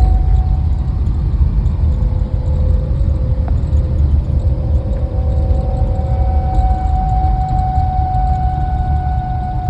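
A 1951 Studebaker Land Cruiser rumbling along on the road, with a thin, steady whine over the rumble that holds its pitch and grows stronger about halfway through. This whine is the car's unexplained noise.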